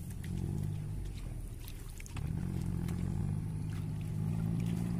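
A steady low motor drone that dips briefly about two seconds in and then comes back, with faint scattered clicks and splashes.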